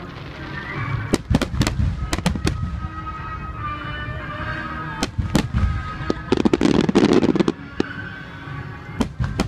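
Aerial firework shells bursting in quick succession, with sharp bangs in clusters and a dense rapid crackle from about six to seven and a half seconds in. Music plays underneath.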